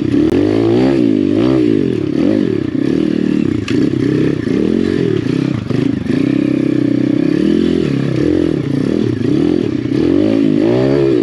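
Apollo RFZ pit bike's swapped-in 150cc four-stroke single-cylinder engine being ridden along a rough trail, the revs rising and falling continually with the throttle.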